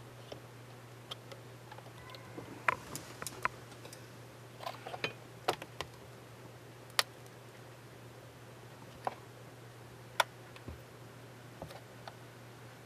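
Irregular small plastic clicks and taps as the bridge superstructure of a 1/350 plastic ship model is handled and pressed into place on the flight deck, with a few sharper clicks among softer ones. A steady low hum sits under them.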